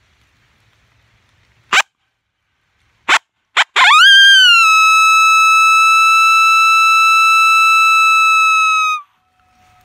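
Coyote howl blown on a hand-held howler call: three short sharp barks, then a pitch that sweeps up into one long, steady, loud howl that drops slightly as it cuts off about nine seconds in.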